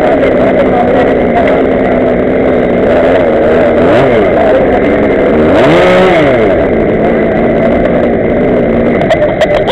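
Small two-stroke engine of a Go-ped scooter idling, then revved up and back down twice, about four seconds in and more strongly about six seconds in. A few sharp clicks sound near the end.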